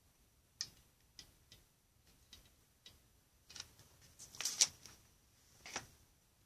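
Light scattered clicks and taps from a hot glue gun and hands working on a foamboard frame, with a louder brief clatter about four and a half seconds in and another tap near six seconds.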